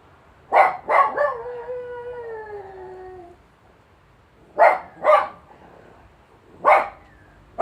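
Jack Russell terrier barking twice, then a long howl that slides slowly down in pitch for about two seconds, then three more single barks spaced a second or two apart.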